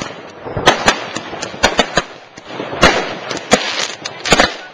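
New Year's Eve firecrackers and fireworks going off all around: a dozen or so sharp bangs at irregular intervals, some in quick pairs, over a continuous background of more distant crackling and popping.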